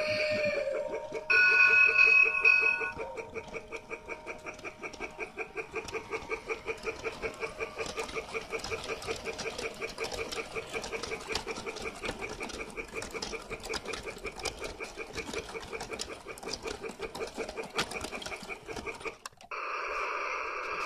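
Toy steam locomotive's electronic sound effects: a loud steam-whistle sound about two seconds in, then a rhythmic chuffing that quickens as the train gathers speed, with light clicking from the wheels on the track. The chuffing cuts off near the end, leaving a steady hiss.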